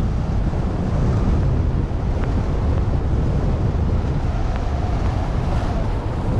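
Steady wind rumbling and buffeting across an action camera's microphone during a downhill ski run, with the hiss of skis sliding over snow underneath.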